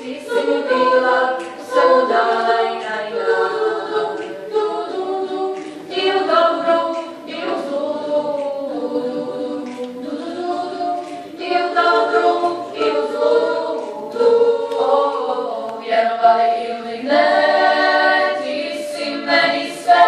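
Women's choir singing a cappella, several voices together in sustained phrases.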